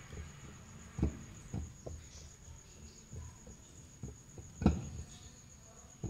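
Spatula folding flour by hand into whipped sponge-cake batter in a stainless steel bowl: a few soft knocks of the spatula against the bowl, the loudest a little before five seconds in, over a faint steady high whine.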